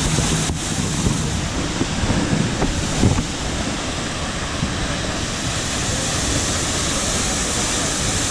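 Steady loud rush of a heavy-flowing waterfall, falling water as an even noise without pause.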